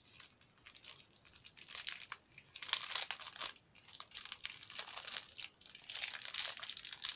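Plastic packaging crinkling and rustling as it is handled, in irregular crackles with a brief lull about three and a half seconds in.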